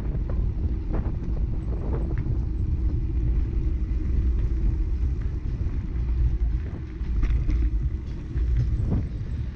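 Steady low rumble of wind and rolling noise on a moving camera's microphone, with a few faint clicks and knocks over it.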